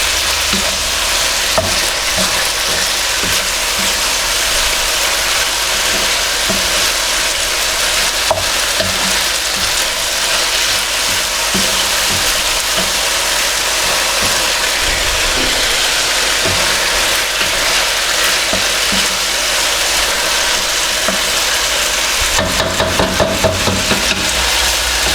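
Chicken and stir-fried vegetables sizzling steadily in a hot wok as a cornflour-thickened sauce is stirred through, with a run of quick stirring strokes near the end.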